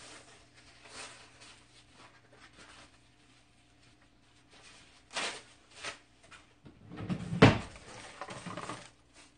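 Kitchen handling sounds: a few scattered knocks, then a louder clatter about three-quarters of the way through, over a faint steady hum.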